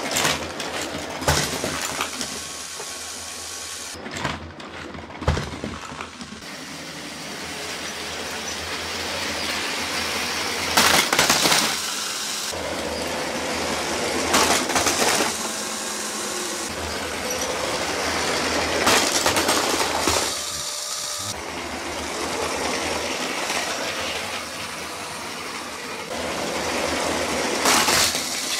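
Motorized toy brick trains running on plastic track and crashing several times: a steady motor whir and wheel rattle broken by sudden clatters of plastic bricks at each collision. The background changes abruptly several times.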